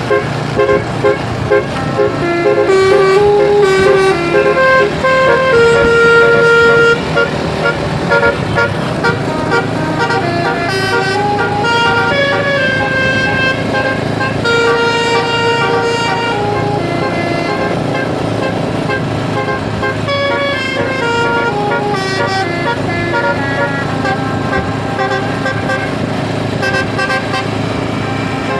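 Indonesian bus 'basuri' telolet horn set playing a tune: a long run of quickly changing horn notes, some held longer, over a steady low vehicle rumble.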